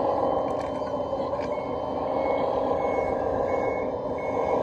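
A 1/14-scale Komatsu WA470 RC wheel loader reversing. Its reversing beeper starts about a second and a half in and sounds about five short, evenly spaced beeps over a steady running noise from the model.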